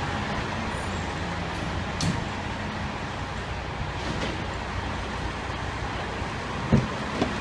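Parked fire trucks' diesel engines idling, a steady low rumble with a constant hum. There is a short click about two seconds in and two sharp knocks near the end.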